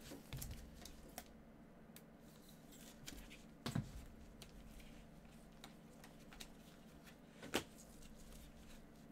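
Trading cards and a card pack handled with gloved hands: faint rustling and sliding of cards with small clicks, and two louder taps, about four and seven and a half seconds in.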